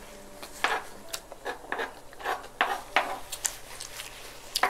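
Close-up eating sounds: a string of short wet smacks and clicks from chewing with a spoon in use, and a sharper spoon clink or scrape near the end. A woman sniffles, her nose running from the very spicy food.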